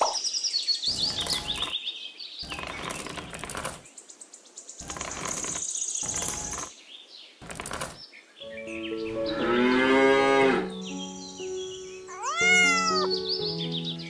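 A cow moos once, a long call that rises and then falls, about two-thirds of the way through, over background music with bird chirps. In the first half there are several short bursts of rustling noise.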